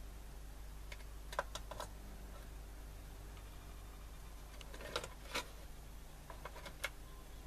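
Light clicks and taps from handling a small transistor radio and tools on a workbench, in small clusters about a second and a half in, around five seconds and again near seven seconds, over a steady low mains hum.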